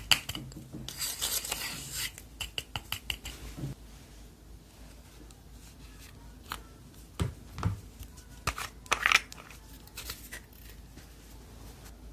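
Slime being worked by hand for ASMR: scraping and crackling with scattered sharp clicks, loudest in the first two seconds and again around nine seconds in.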